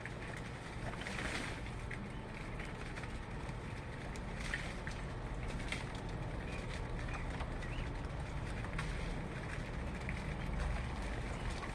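A few faint, short bird chirps over a steady low rumble.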